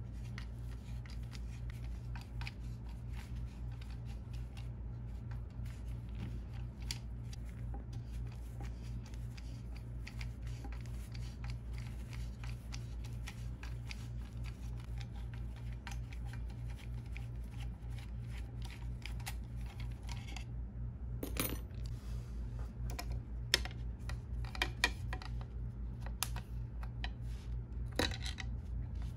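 Small clicks and taps of a screwdriver working screws and gloved hands handling the Mac Pro's metal frame and logic board, with a few sharper clicks near the end, over a steady low hum.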